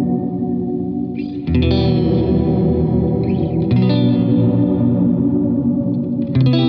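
Electric guitar chords played through a Walrus Audio Lore pedal set to its low-octave feedback program, a thick, murky reverb wash with a low octave beneath. A chord is ringing at the start, and new chords are struck about a second and a half in, near four seconds in, and near the end, each swelling into the wash.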